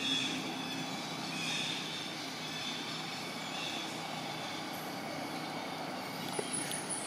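Steady outdoor background noise, a low hum and hiss with faint high-pitched tones, and a few small clicks near the end.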